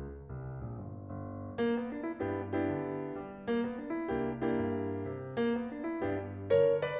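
Background piano music: a gentle melody of struck notes and chords, a new chord about every second.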